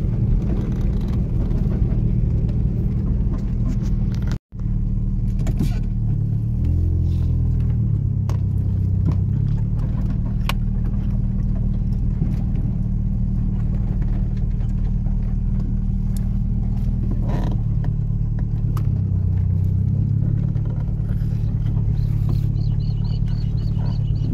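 Motor vehicle driving, its engine running steadily with scattered knocks and rattles. The engine note shifts a few seconds in, and the sound cuts out for an instant about four and a half seconds in.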